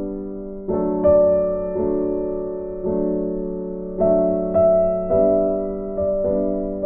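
Soft electric piano music: slow sustained chords, a new chord struck about once a second and left to fade.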